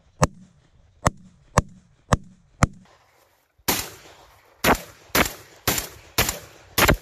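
A rapid string of gunshots, about two a second: five sharp cracks, then after a pause of about a second a louder run of six shots, each with a longer ring after it.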